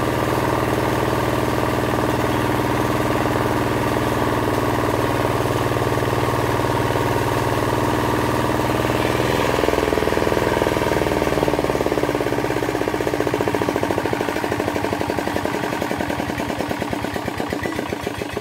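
Engine of a water pump draining a pond, running steadily. Its note shifts about ten seconds in, and it settles into an even pulsing beat that fades slightly toward the end.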